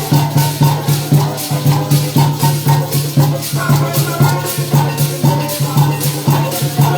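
Parang band playing an instrumental passage: quick, even maraca strokes and drum over a pulsing bass line, in a steady beat.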